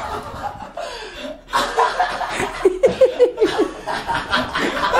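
People laughing, with a quick run of short ha-ha pulses about halfway through.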